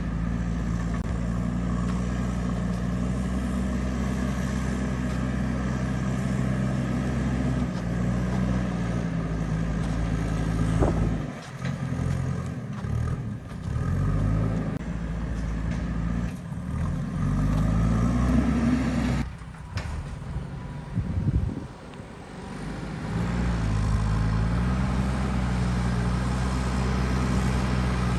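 JCB backhoe loader's diesel engine running steadily. About halfway through, its revs rise and fall several times and briefly drop off, then it settles back to a steady run.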